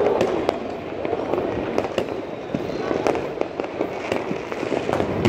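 Fireworks going off across a city: a continuous din of many distant bangs and crackles, with louder single bangs every second or so.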